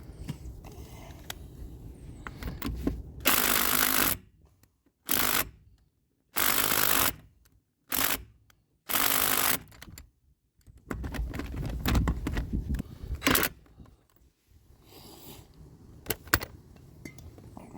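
An aerosol can of PB Blaster penetrating oil hisses in five short bursts, each about half a second to a second long and each cut off abruptly, as the rusted lug nuts are soaked. These are followed by a couple of seconds of metallic knocks and rattling.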